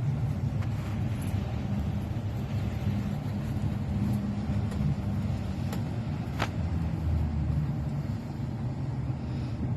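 Steady low rumble of a car's engine and road noise, heard from inside the car, with a few faint clicks, one about six and a half seconds in.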